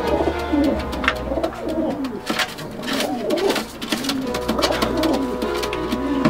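Racing pigeons cooing over and over, each coo a rising-and-falling call, with a few sharp wing flaps.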